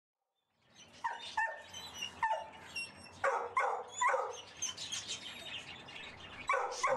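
A dog barking: about eight sharp, separate barks, starting after a brief silence, with a longer gap between barks around five to six seconds in.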